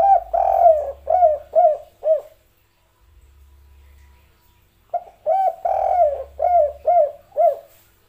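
Spotted dove cooing: two phrases about five seconds apart, each a drawn-out coo followed by three short falling notes. This is the 'kuk 3' song type.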